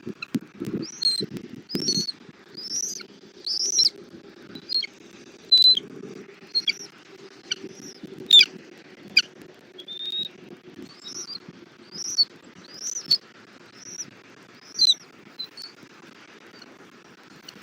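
Bald eagle giving a series of high, thin chirping calls, about one a second, each note bending up then down, with a few sharper short notes among them. Low rustling and bumps come in the first two seconds.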